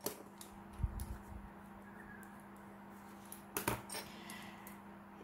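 Small clicks and taps of pens being handled on a desk, with faint pen scratching on paper, over a low steady hum. A sharp clack sounds about three and a half seconds in.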